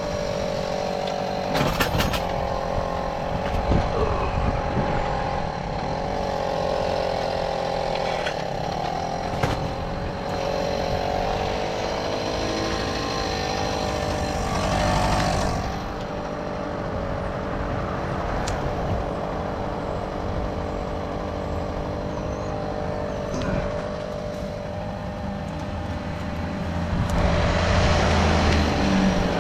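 Tomos moped's small two-stroke engine running steadily while being ridden, with a few sharp clicks along the way. It grows louder near the end.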